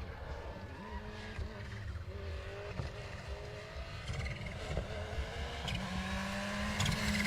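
Rally car engine heard at a distance, its pitch rising and falling through repeated revs and gear changes as the car drives the stage, growing louder toward the end as it approaches.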